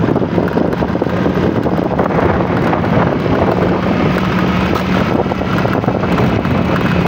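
Wind rumbling across the microphone over a steady low engine drone that holds one pitch throughout.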